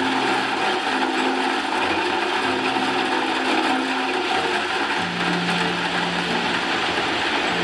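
Crushed-stone ballast sliding and rattling out of a tipped dump truck bed, a steady gritty rush. Under it a low hum that drops in pitch about five seconds in.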